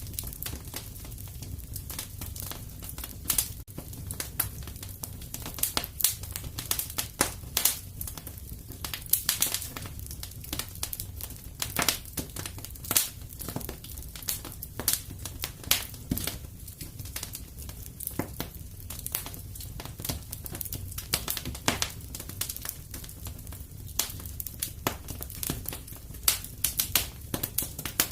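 Wood fire in a fireplace crackling and popping, with many sharp irregular snaps over a steady low rumble of the flames.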